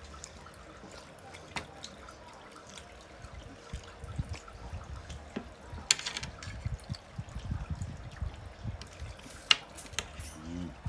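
A fork clinking and scraping on a plate as it pulls meat off the bone, with sharp clinks about a second and a half, six and nine and a half seconds in. Between them are soft, wet, irregular eating and handling sounds.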